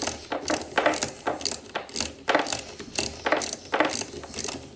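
Clear plastic air tubing being pushed and twisted onto the metal fittings of a model compressed-air engine: an irregular run of sharp clicks and creaks, about three a second.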